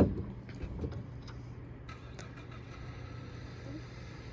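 Steady low hum of an idling car engine, with one loud knock right at the start and a few light clicks over the next two seconds.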